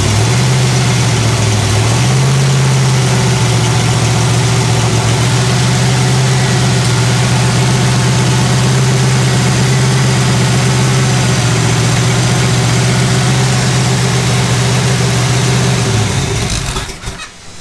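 Small-block 350 Chevy V8 with a Comp Cams solid-lifter cam running steadily on an engine test stand, throttle held up at a fast idle for cam break-in. The engine speed picks up slightly about two seconds in, and the engine stops about sixteen seconds in.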